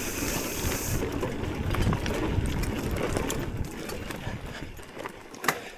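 Mountain bike rolling over rough trail ground, with rattling and clicking from the bike as it slows down. Wind hiss on the action-camera microphone stops about a second in.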